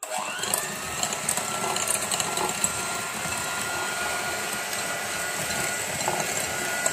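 Electric hand mixer switched on, its motor whine rising as it comes up to speed, then running steadily with its twin wire beaters whisking thin liquid batter in a glass bowl.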